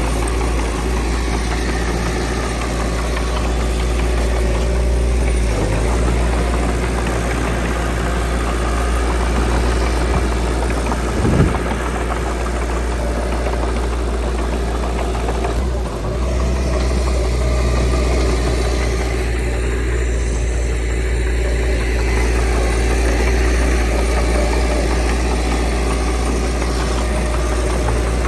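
Diesel engine of earthmoving machinery running steadily, with one brief loud knock about eleven seconds in.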